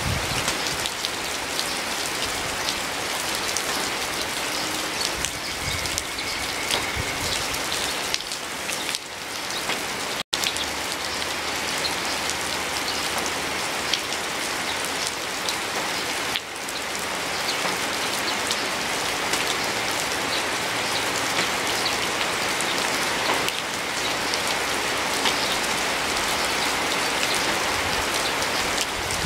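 Steady rain falling, a dense even hiss flecked with individual drops ticking. The sound cuts out for an instant about ten seconds in.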